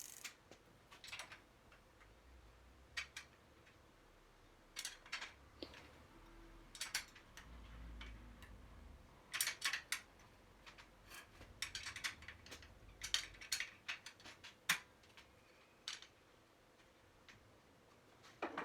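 Irregular short runs of light metallic clicks and ticks from hand tools tightening down a bicycle's rear axle nuts.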